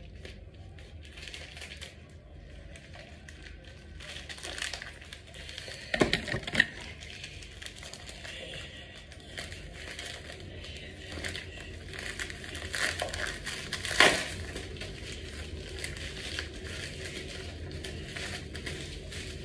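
Plastic mailing packaging crinkling and rustling as it is handled and pulled open by hand, with sharper, louder crackles about six seconds in and again about fourteen seconds in.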